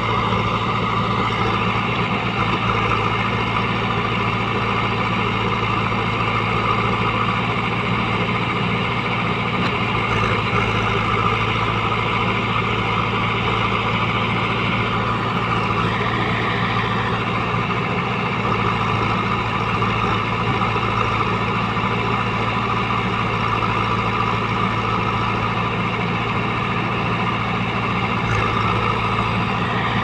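Diesel engines of a JCB 3DX backhoe loader and a Mahindra 475 DI tractor running steadily while the backhoe arm works. A brief higher-pitched sound rises over the engine drone about halfway through.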